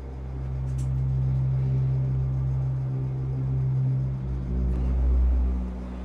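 Low rumbling drone in a horror film's soundtrack, swelling in over the first second and peaking about five seconds in, with faint held tones above it.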